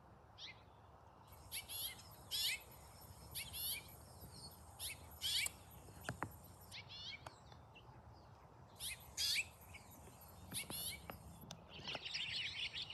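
Recorded house finch calls played back to attract the bird: a series of short, wavy chirps at about one a second, turning into a denser twittering near the end.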